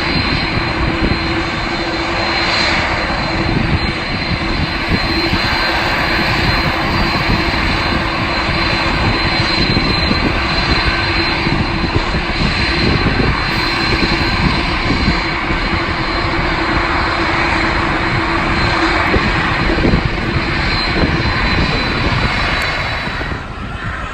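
Jet airliner engines running loud and steady nearby, a rushing noise with a thin high whine and a lower hum. The wind buffets the microphone. The sound falls away near the end.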